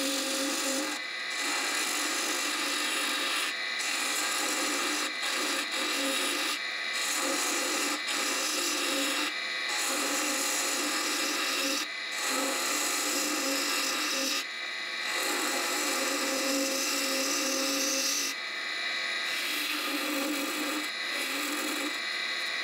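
Wood lathe spinning a goblet blank while a hand-held turning tool cuts its thin stem: a steady hiss of cutting over the lathe's hum, broken by many short gaps where the tool lifts off the wood.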